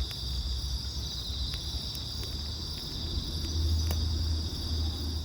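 Insects, likely crickets, chirring steadily in a high continuous trill, over a low rumble with a few faint clicks.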